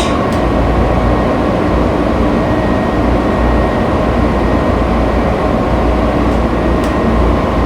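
Washington Metrorail train standing at a station with its doors open: a steady hum and rush from the train, with a faint steady high tone and no chime or announcement.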